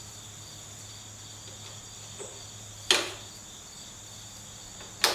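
Steady high-pitched cricket trill with a low hum beneath it, broken by two sharp metallic clicks about two seconds apart as tools work on the chassis lubrication-line fittings.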